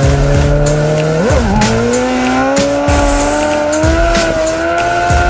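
Sport motorcycle engine heard from the rider's helmet microphone, accelerating. About a second in it shifts up: the pitch breaks and drops, then climbs steadily again. Short gusts of wind buffet the microphone throughout.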